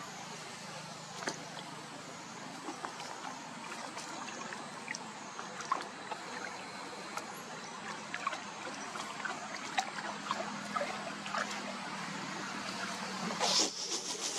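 Water lapping and trickling with many small plops and drips, as from animals swimming and splashing, and one larger splash near the end, over a steady low hum.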